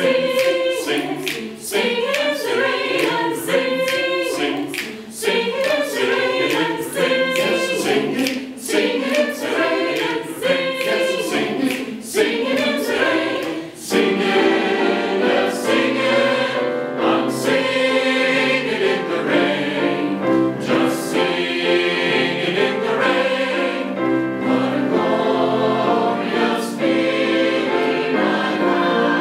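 Mixed choir singing a lively jazzy arrangement in close harmony, with sharp clicks keeping the beat. About halfway through, the singing turns into fuller, held chords.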